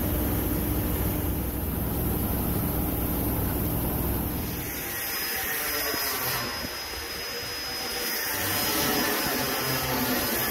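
Industrial recycling machinery running steadily, a granulator and mill line. A deep rumble with a steady low hum gives way about four and a half seconds in to a thinner, higher-pitched hiss of machinery.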